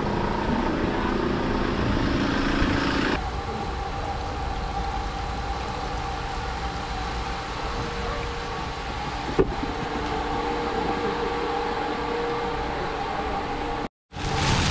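A steady machine hum holding several even tones over a low rumble, starting abruptly about three seconds in after a busier open-air hubbub; a single sharp click about halfway.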